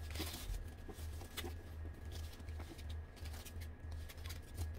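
Faint rustling and small clicks of white protective wrapping being handled on a leather handbag's handles, over a steady low hum.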